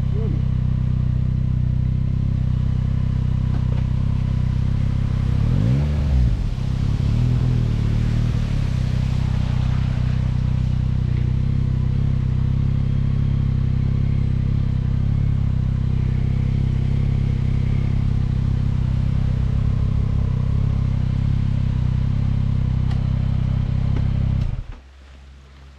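Yamaha Tracer 9 GT's three-cylinder engine idling steadily, with a brief rise and fall in pitch about six seconds in. The engine is switched off near the end and cuts out suddenly.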